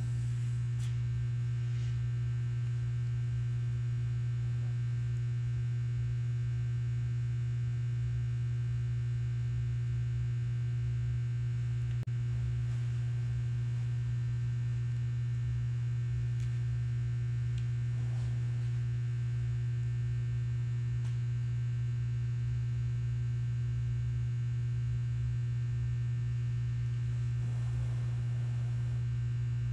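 Steady low electrical hum, with a faint tick about twelve seconds in.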